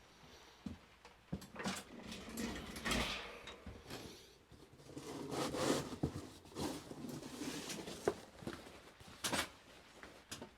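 Rustling with scattered light clicks and knocks, the sound of someone moving about and handling things up close.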